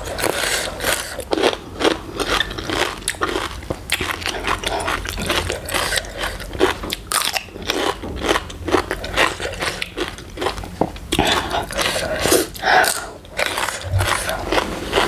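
Close-up crunching and chewing of raw cucumber: a rapid run of crisp, wet crunches from bites into the cucumber.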